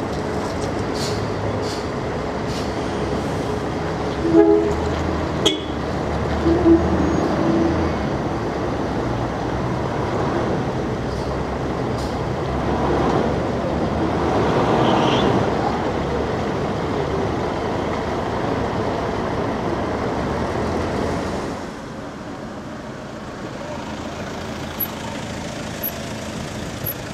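A coach's diesel engine running as the coach pulls away and turns across the yard, with a swell about halfway through. A few short tones and a sharp click sound early in the first half. After a sudden drop in level near the end, quieter street traffic with a car moving off.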